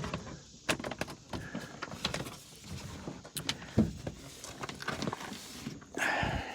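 A hand rummaging inside a pickup truck's door cavity: irregular clicks, taps and scrapes of plastic and sheet metal, with a louder rustle near the end.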